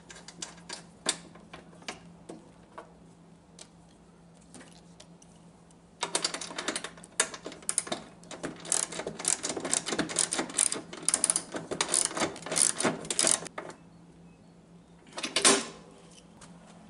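Scattered light clicks and taps, then about seven seconds of rapid, dense clicking and rattling, with one louder clack near the end: hand assembly work on a lawn tractor's seat wiring and seat mount.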